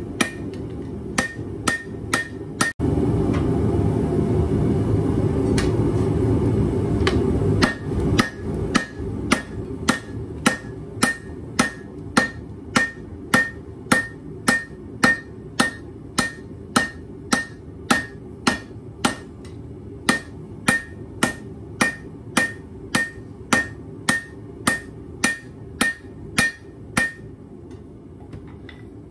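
Dog's head hammer striking a red-hot leaf-spring knife blade on an anvil in a steady rhythm of about two blows a second, each blow with a short metallic ring. For the first seven seconds or so a loud, steady rushing noise runs under the blows, then drops away. The blows stop near the end.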